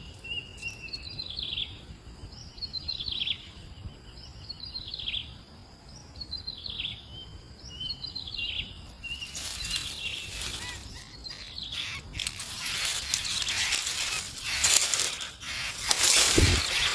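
A bird repeats a short call, a steady note dropping into a quick falling sweep, about every second and a half to two seconds. From about nine seconds in, loud, noisy rustling bursts take over.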